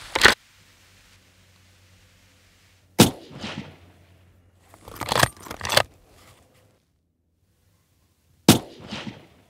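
Two moderated rifle shots about five and a half seconds apart, each a sharp crack with a short echo tail, from a Blaser bolt-action rifle. Between them the straight-pull bolt is worked with a few quick metallic clicks, and a sharp bolt click sounds at the very start.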